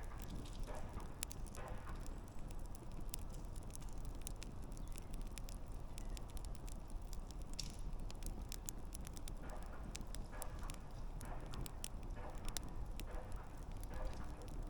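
Wood campfire crackling: irregular sharp pops and snaps over a steady low rumble of burning, with the snaps coming thicker in the second half.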